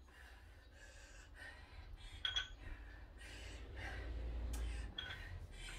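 Faint heavy breathing of a person mid-workout, gasping breaths between exercises, with a couple of light clinks and a low rumble swelling about four seconds in.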